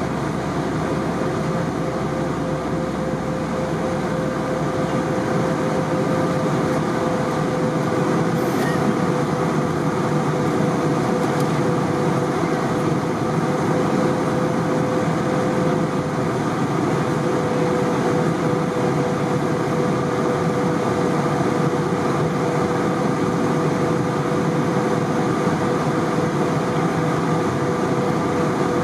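Airbus A320 cabin noise in flight: a steady rush of engine and airflow noise with a constant humming tone running through it.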